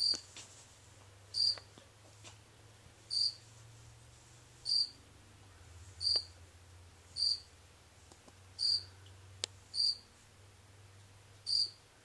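A cricket chirping: short, high-pitched chirps repeating evenly, about one every second and a half, nine in all.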